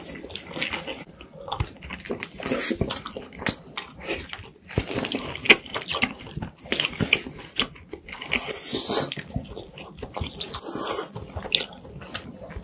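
Close-miked eating sounds: spaghetti being slurped and chewed, with a quick run of wet mouth clicks and smacks, and a soft burger bun being bitten.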